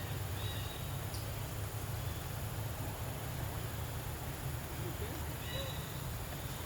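Steady outdoor background noise with a low rumble, and faint short high chirps about half a second in and again near the end.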